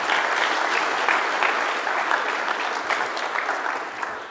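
Audience applauding: dense, steady clapping from a large room of people, tapering off near the end.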